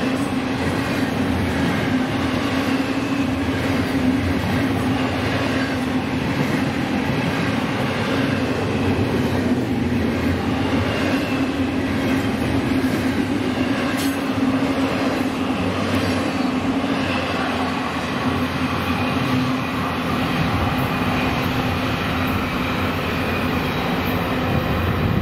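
Long freight train's cars rolling steadily past on the rails, a continuous loud wheel-on-rail noise with faint high-pitched wheel squeal.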